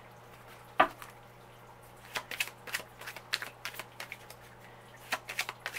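Tarot cards being handled, drawn from the deck and laid down on a cloth: one sharp snap about a second in, then a string of light card flicks and taps, about three or four a second.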